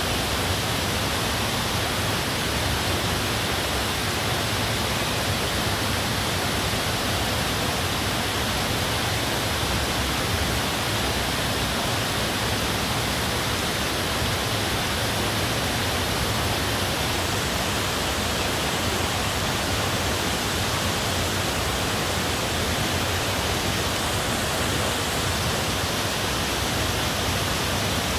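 Steady rush of water falling from a cave overhang into a pool, an even hiss that does not change.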